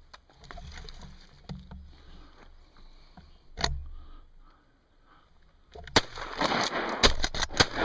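Handling noise on a camera mounted on a shotgun: low wind rumble on the microphone with scattered knocks and clicks, one sharp knock a bit over halfway, then a quick run of louder knocks and rattles near the end.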